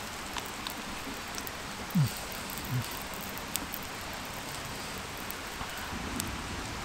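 Steady hiss of night-time forest ambience, with scattered faint ticks and rustles of dry leaves. Two short low sounds falling in pitch come about two seconds in, less than a second apart, the first the louder.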